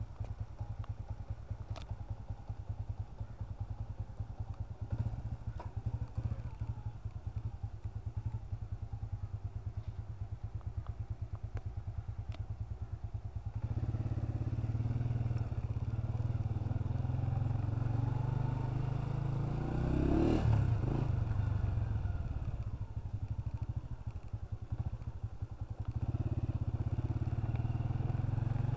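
Honda CG 125's single-cylinder four-stroke engine idling with a fast, even beat. About halfway through it gets louder as the bike pulls away, and the engine note rises with the throttle. It eases off briefly near the end, then picks up again.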